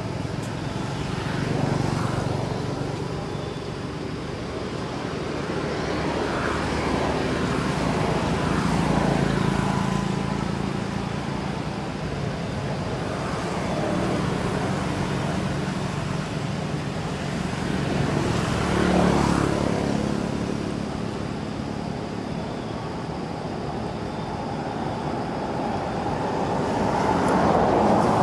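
Road traffic passing: engine and tyre noise from vehicles swells and fades one after another every few seconds, with the loudest pass near the end.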